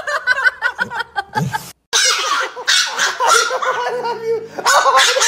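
People laughing, with a brief break of silence about two seconds in.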